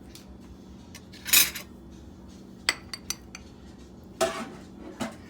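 A cup and spoon clinking and scraping against a bowl as a cup of corn is tipped into cooked rice: a short scrape about a second and a half in, a few sharp clinks around the three-second mark, and another scrape about four seconds in.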